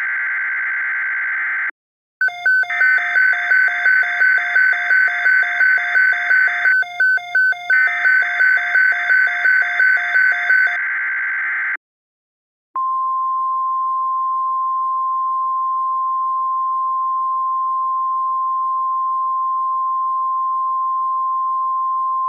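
Emergency Alert System SAME header data bursts, a buzzy digital screech, with a beeping about twice a second over the later bursts. The screech cuts off, and about a second later a single steady tone of about 1 kHz sounds for roughly ten seconds: the NOAA Weather Radio 1050 Hz warning alarm tone that opens a tornado watch alert.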